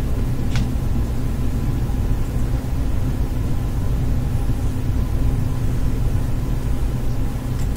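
A steady low rumble, with a single faint click about half a second in.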